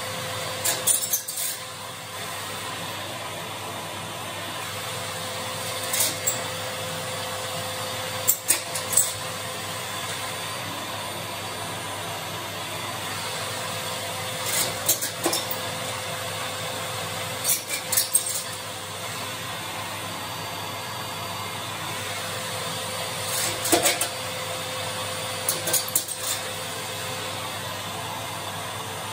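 A vacuum cleaner runs steadily while a wire flue brush scrapes and clinks against the metal of an oil boiler's combustion chamber and heat exchanger. The brushing comes in short bouts every few seconds.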